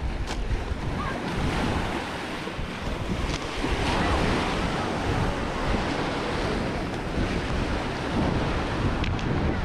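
Sea waves washing onto a small-pebble and gravel shore, with wind buffeting the microphone into a low rumble. A few light clicks stand out, at the start, about three seconds in and near the end.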